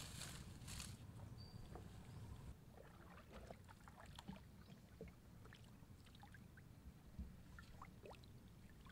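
Faint paddling of a small wooden boat on calm water: the paddle dipping with scattered small drips and splashes. Leaves and branches rustle briefly at the start.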